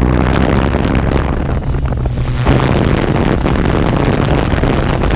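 Quadcopter drone's electric motors and propellers buzzing with a steady low hum, mixed with wind rush over the on-board microphone as it climbs.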